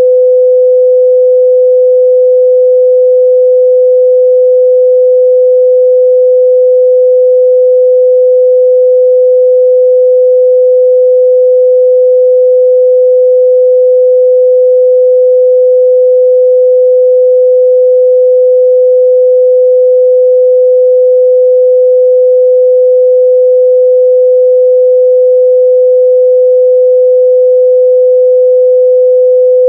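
Steady, loud 505 Hz sine-wave test tone, one pure pitch held without change, as used to check the midrange response of speakers and headphones.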